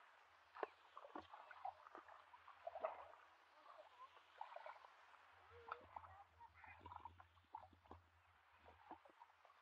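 Faint, irregular splashes and soft knocks of a hoe worked through shallow muddy water and wet mud.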